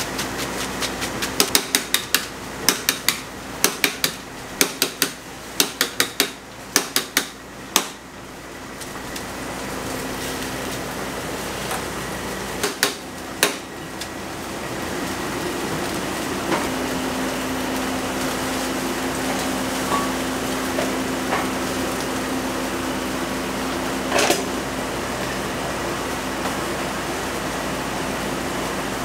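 Long-handled metal noodle strainer rapped hard against a pot again and again, about two sharp knocks a second for the first eight seconds, shaking the water out of boiled ramen noodles. A few single clanks of pots and utensils follow over a steady hiss from the boiling pot and burner.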